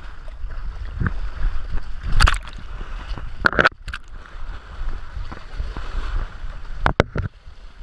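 Splashing and sloshing as a dog wades and scrambles through shallow water among mangrove roots, heard from a camera harnessed to its back, with a low rumble of wind and movement on the microphone. Several sharp splashes or knocks stand out, the loudest a little over two seconds in and around three and a half seconds in, and two more close together near the end.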